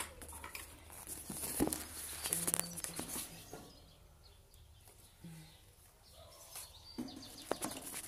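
Wire bird cage being handled, with scattered clinks and knocks of the wire and its fittings. Bird chirps come through, mostly in the first few seconds and again near the end.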